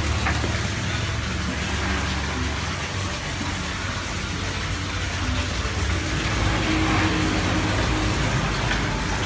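Steady road noise and low engine rumble inside a moving car.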